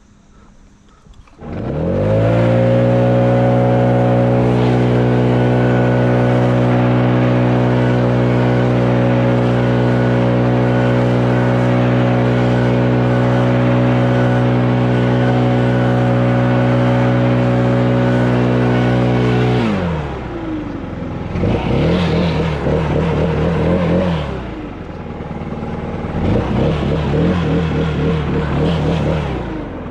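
A loud motor spins up quickly, runs at a steady pitch for about 18 seconds, then winds down, followed by two shorter runs with a wavering, unsteady pitch.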